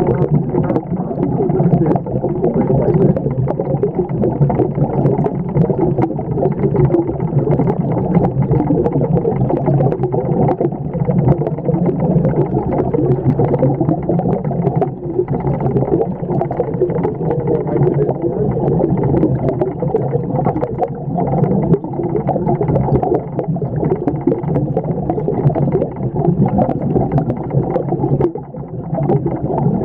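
Muffled, steady rumbling and gurgling of aquarium water, picked up by a camera held underwater in the tank, with scattered faint ticks.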